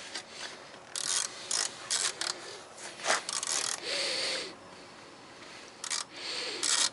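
A screwdriver with a T30 Torx bit backs a screw out of a van's rear taillight assembly: a series of short scraping clicks. About four seconds in comes a longer grating squeak.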